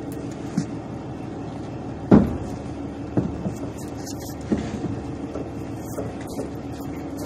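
Several knocks and thumps from items being moved around on a truck bed, the loudest about two seconds in, over a steady low hum.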